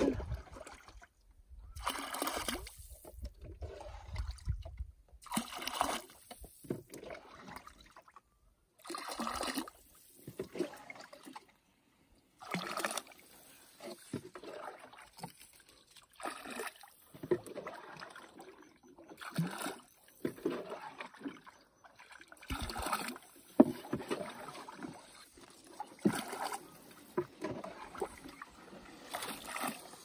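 Canoe paddles dipping and pulling through lake water, a splashy stroke every second or two with short lulls between.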